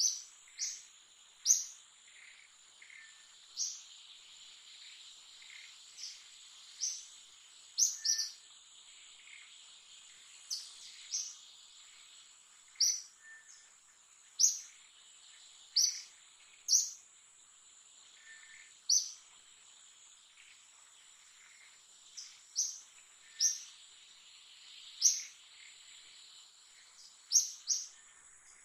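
Short, high bird chirps repeated every second or two, over a steady high insect drone.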